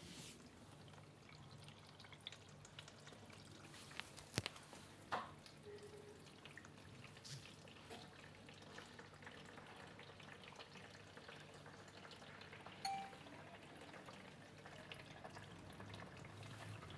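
Faint dripping and trickling water, with a few sharp clicks about four to five seconds in; otherwise close to silence.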